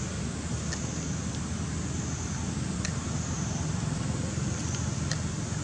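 Steady outdoor background rumble, like distant road traffic, with a high hiss over it and a few faint ticks.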